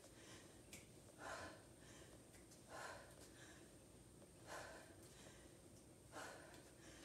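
Faint, rhythmic breathing from a woman doing seated jacks: four short, hard exhales about a second and a half apart, one with each rep.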